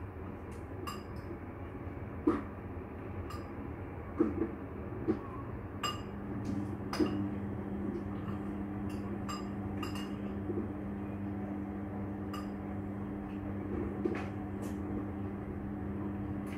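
Scattered sharp clinks and knocks, a dozen or so, over a steady hum that comes in about six seconds in.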